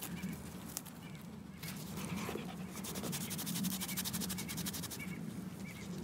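A dog panting in quick, even breaths, strongest through the middle few seconds.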